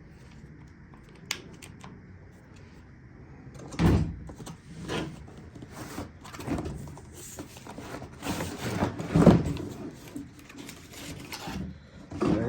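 Unpacking a power-tool kit: knocks and thumps of a box and its contents being handled and opened, with rustling of packaging, in irregular bursts from about four seconds in.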